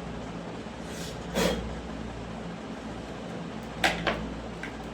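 Steady room hum, with a short soft rustle about a second and a half in and a quick pair of sharp clicks near the end, like something being handled or a cupboard latch.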